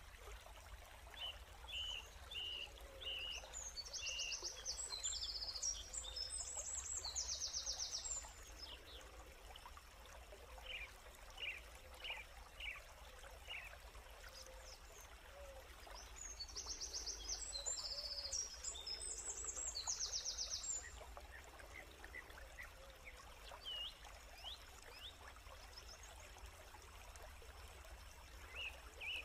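Birds chirping and calling outdoors, with two stretches of rapid high trilling, one about four seconds in and one about sixteen seconds in, over a faint steady background hum.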